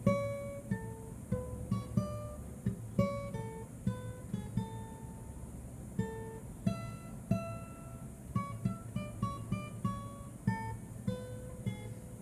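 A guitar played live, picking out a melody of single notes, each one plucked and left to ring.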